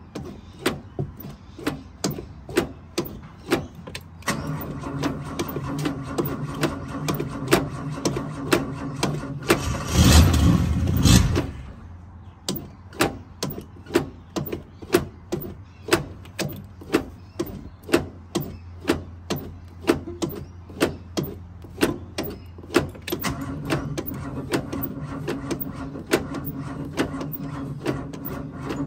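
Gas pedal of an old Mopar pumped over and over, each stroke a sharp knock, about every two-thirds of a second. Under it a steady low mechanical drone runs in two stretches, and a loud rushing burst about ten seconds in lasts a second and a half.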